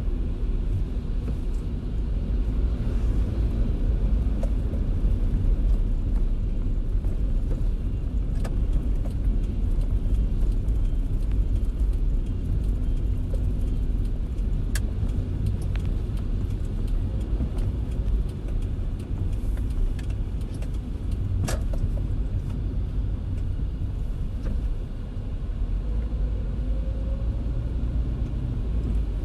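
A car driving in the rain: a steady low rumble of road and engine noise, with a light hiss above it and a few isolated sharp ticks.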